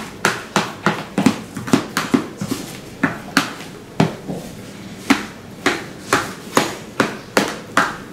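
A rapid, uneven series of sharp knocks, about three a second, with a short gap around the middle.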